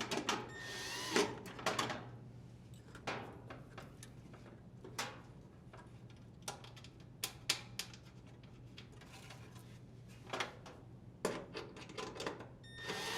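Screws being driven in with a drill driver and sheet-metal dryer parts being handled: a few short motor whirs among many scattered clicks and knocks.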